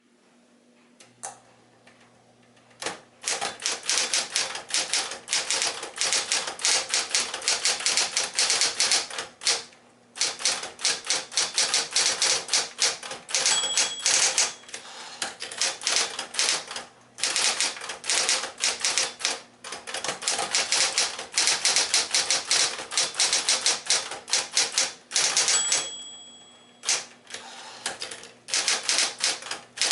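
Smith Corona Electra 120 electric typewriter: its motor starts humming about a second in, then fast runs of keystrokes clatter with short pauses. A brief ringing tone, typical of the typewriter's end-of-line bell, sounds twice.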